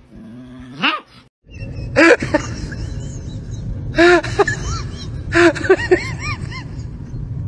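Dogs barking in short clusters of several barks, over a steady low rumble.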